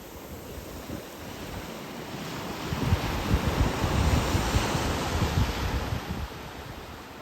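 Atlantic surf on a beach: a wave swells about two seconds in, breaks and washes up loudly for a few seconds, then dies away. Wind buffets the microphone throughout.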